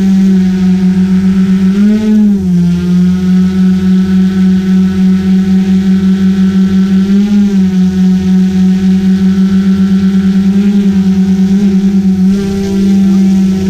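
GoPro Karma quadcopter's four propellers and motors running with a steady buzzing whine and a regular throb. The pitch rises briefly a few times, about two seconds in, at about seven seconds, and near the end, as the motors speed up.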